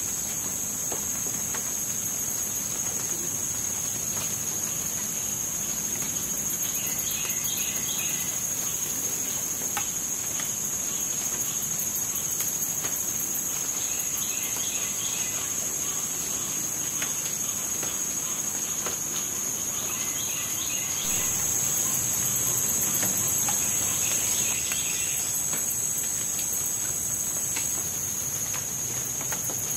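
Steady high-pitched chorus of trilling insects, with a short call repeating four times about six seconds apart and faint scattered drips of rain on water.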